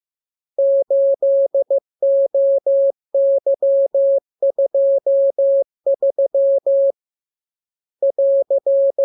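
Morse code sent as a single steady mid-pitched beep, keyed on and off in short dots and longer dashes grouped into characters. A pause of about a second comes near the end before one last group.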